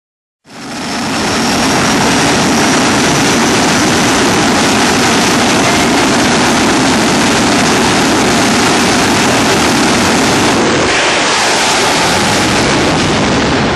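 Jet drag cars' turbine engines running at high power: loud, steady noise with a thin high whine, starting abruptly half a second in. About eleven seconds in the sound shifts as the cars launch on afterburner.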